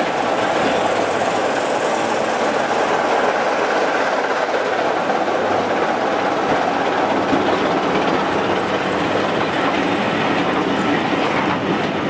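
A Class 25 diesel-hauled passenger train running past close by: the locomotive passes first, then its coaches roll by with a steady noise of wheels running on the rails.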